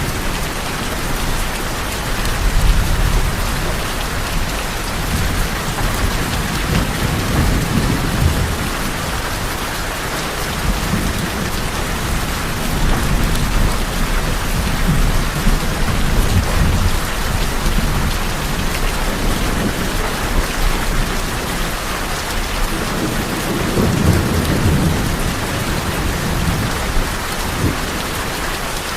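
Rain falling steadily on a tin roof, with low rolls of thunder rising and fading several times, the strongest near the end.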